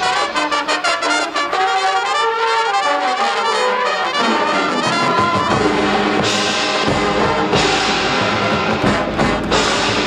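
Marching band playing, brass leading. The first half is quick repeated notes with no bass under them; about halfway the low brass and drums come in, and the full band plays with cymbals crashing over it.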